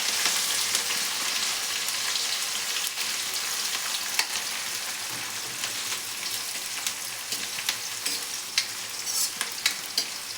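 Chopped onion and chillies sizzling in hot oil in a kadhai as they are stirred, the utensil clicking against the pan now and then. The sizzle eases a little as it goes on.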